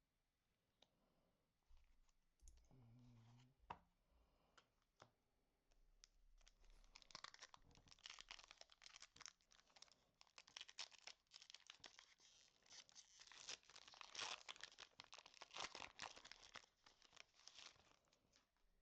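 Faint crinkling and tearing of a Pokémon booster pack's foil wrapper being opened, a dense crackle that starts about six seconds in and runs on for most of the rest. It is preceded by a few light clicks.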